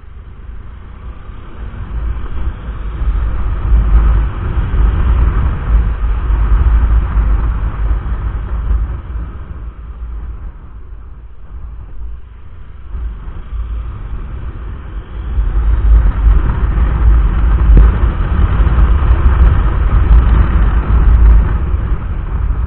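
Motorcycle on the move with heavy wind rumble on the microphone, swelling up twice and easing in between; the engine runs steadily underneath.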